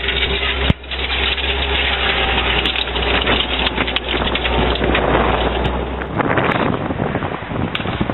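Tank engine running with a steady low drone under loud wind noise on the microphone; the engine drone cuts off about six seconds in, leaving the wind noise.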